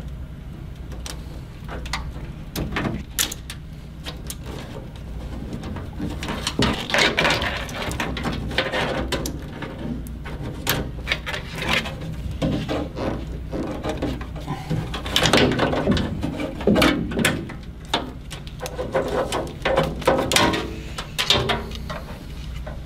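Wiring harnesses being pulled up out through the top of a Weil-McLain Ultra boiler cabinet: wires and plugs scraping and rustling against the cabinet, with scattered clicks and knocks, over a steady low hum.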